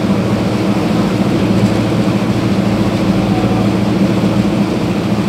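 Engine of a motorized bangka outrigger boat running steadily under way, a constant low drone with no change in speed.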